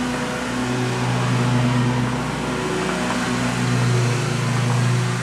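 A steady low mechanical hum, like a motor or engine running, holding one low pitch.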